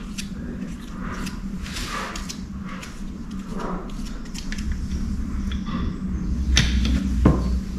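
Small handling noises of gloved hands and an oil bottle working over the crankshaft main bearing shells in a bare engine block as they are oiled, with scattered light clicks and two sharper clicks near the end, over a steady low hum.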